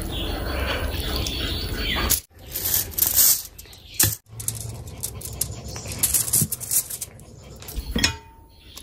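Close-miked wet eating sounds: squelching of oily mutton fat curry handled by bare fingers and wet chewing and smacking, with small sticky clicks. The sound cuts off abruptly twice, a little after two seconds and again after four.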